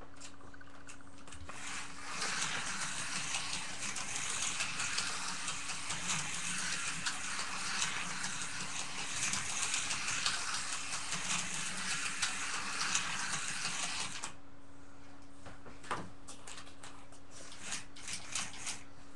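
Slot car running around the track, its small electric motor and wheels making a steady rattling whir that starts about a second and a half in and cuts off suddenly about 14 seconds in; a few light clicks and taps follow.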